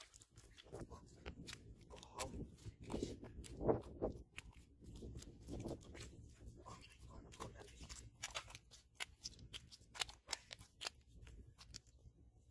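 Irregular crackling clicks and soft thuds as a freshly caught fish is handled on a wet, muddy bank and unhooked.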